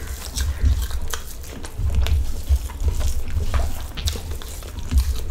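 Close-up wet chewing and mouth smacking of a mouthful of rice and potato fry, with soft squishing of a hand mixing rice on the plate: many short, irregular wet clicks over a low rumble that comes and goes.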